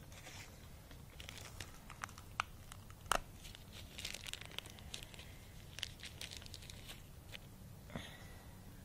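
A small printed parts bag being crinkled and torn open by hand, with a few sharp clicks among the rustling, the loudest about three seconds in.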